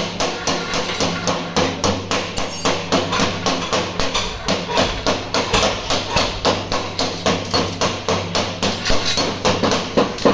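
Hammer beating out dents in the steel sheet metal of a car door, in quick, even blows about three to four a second.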